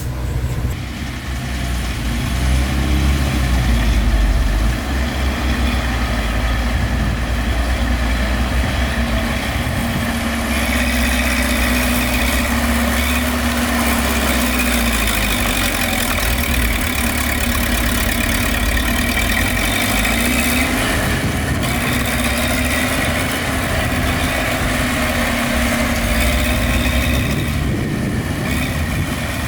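Heavy diesel construction machinery running steadily, a dump truck or bulldozer engine with a deep rumble. A steady high whine joins about a third of the way in and stays on.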